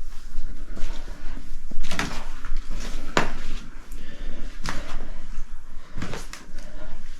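A few separate knocks or scuffs, four or so, roughly a second and a half apart, over a low steady rumble.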